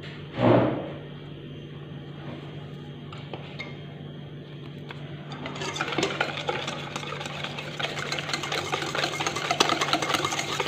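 Wire whisk beating egg and sugar in a stainless steel bowl: a rapid, continuous clatter of wire against metal that starts about halfway through. Before it, a short sound near the start and a few seconds of steady low hum.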